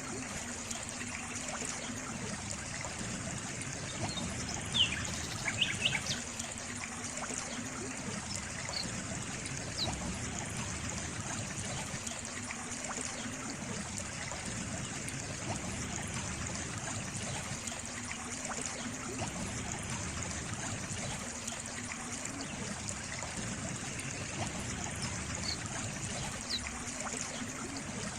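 Water trickling and running steadily, like a small stream. A few short, high bird chirps come about five seconds in and again near the end.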